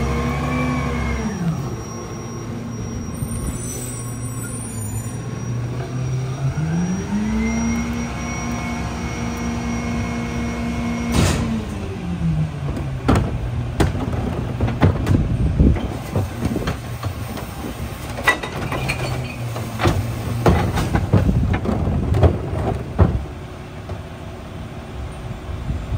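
Mack LEU garbage truck's diesel engine revving up, holding high and dropping back to idle, the rise and fall it makes while the rear loader's hydraulics run. About eleven seconds in comes a sharp crack, then for some ten seconds a string of knocks and bangs as trash and a cart are handled at the rear hopper, over the idling engine.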